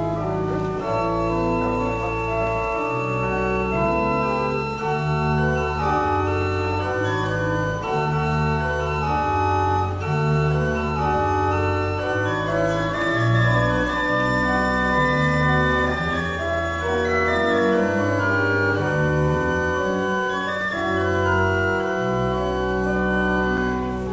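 Pipe organ playing slow, sustained chords over deep bass notes, the chords changing about every second or two without a break.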